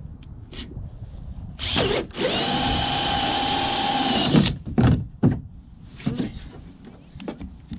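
Cordless drill running at a kayak rod holder mount: a short rev, then a steady whine for about two seconds that cuts off, followed by two quick blips of the trigger.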